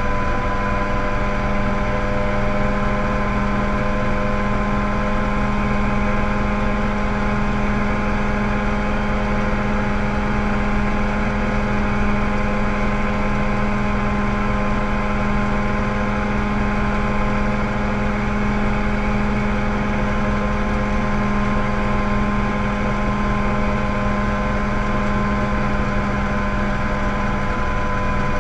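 Mosquito ultralight helicopter's engine and rotor running steadily in cruise flight, heard from inside the cockpit as a constant drone.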